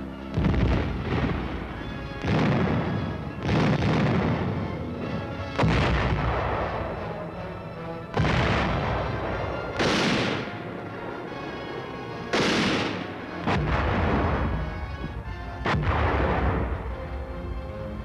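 Artillery fire: about nine heavy booms at uneven intervals of one to three seconds, each dying away over a second or two.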